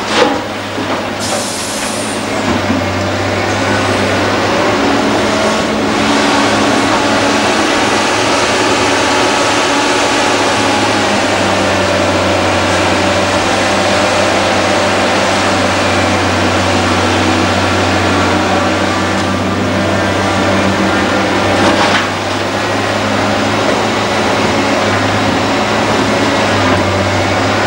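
Diesel engines and hydraulics of a Liebherr R962 Litronic hydraulic excavator and a Mercedes dump truck running steadily while the excavator digs soil and loads it into the truck's tipper body. There is one short, louder impact past the middle.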